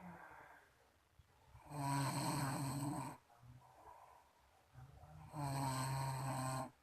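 A person snoring: two long snores, each about a second and a half, coming about four seconds apart, with fainter breathing between them.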